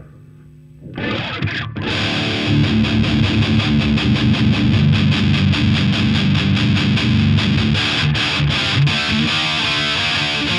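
Distorted electric guitar played through a London City Bulldog valve amp head. After about a second of quiet amp hum, a chord rings out about a second in. From about two seconds on comes a fast, even chugging riff of several strokes a second.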